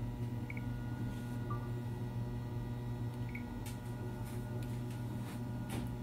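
A steady low hum with a few faint ticks and short chirps over it.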